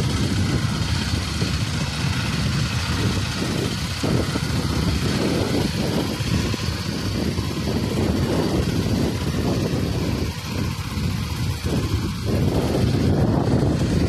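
Petrol engine of a walk-behind two-wheel tractor running steadily under load while it pulls a ridging plough through the soil.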